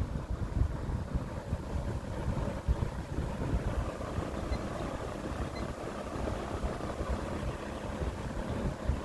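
Lakewood 200i box fan running on low with a swapped-in three-wing high-velocity blade: a steady rush of moving air with some blade noise, and air buffeting the microphone. The whoosh builds slightly a few seconds in.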